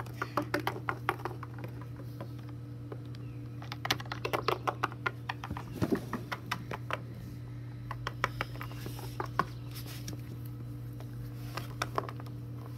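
Small hard-plastic Littlest Pet Shop figures and a plastic toy car clicking and clacking as they are handled and set down on wooden deck boards: irregular runs of quick taps, busiest about four to seven seconds in. A steady low hum runs underneath.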